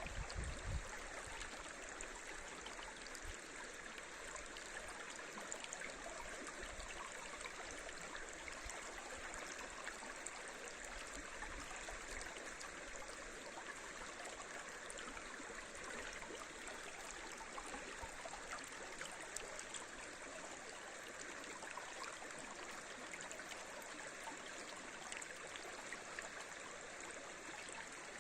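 River water rushing over shallow rapids, a steady, even flow.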